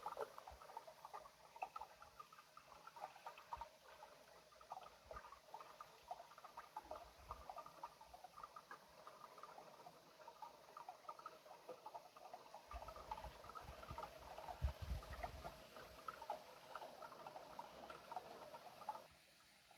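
Eurasian otters at close range: a faint, dense run of small wet clicks and patters, with a few low thumps in the second half, stopping shortly before the end.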